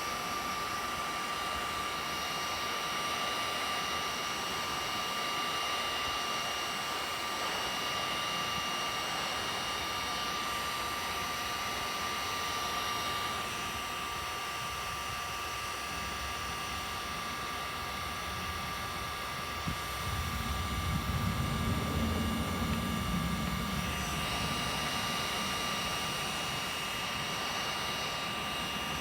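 Electric heat gun running steadily, its fan blowing with a steady whine while it heats the plastic and the knife blade. About two-thirds of the way through, a low rumble joins in for a few seconds.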